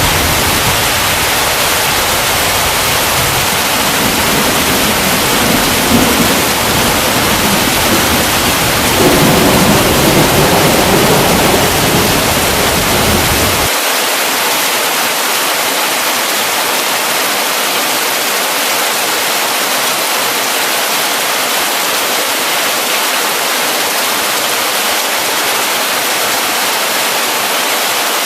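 Heavy downpour hissing steadily, with a low rumble of thunder underneath that swells about nine seconds in. The low rumble cuts off abruptly just under halfway through, leaving only the even hiss of the rain.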